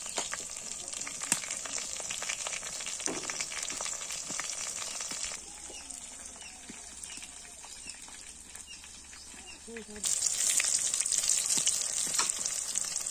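Sliced onions and dried red chillies sizzling and crackling in hot oil in an aluminium kadai. The sizzle is quieter for a few seconds in the middle and louder again near the end, when a spatula stirs through the pan.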